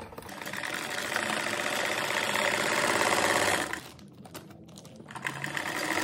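Vigorelli sewing machine stitching through a folded plastic rice bag, running for about three and a half seconds, stopping for about a second and a half, then starting up again.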